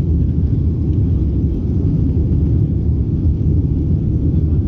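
Steady, deep rumble of a jet airliner's engines and rushing air heard inside the passenger cabin during the climb after takeoff.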